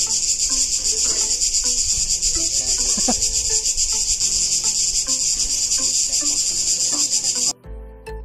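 Cicadas buzzing in a loud, steady, high-pitched chorus that cuts off suddenly near the end, where music comes in.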